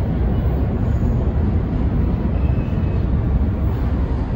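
Steady low rumble of an approaching subway train still out of sight down the tunnel, echoing through the underground station.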